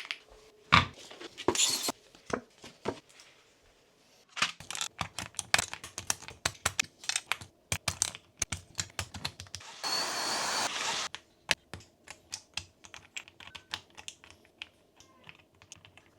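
Keyboard keys and plastic keycaps clicking and clacking in irregular runs as the keycaps are handled and pressed. About two-thirds of the way through there is a rushing noise lasting about a second.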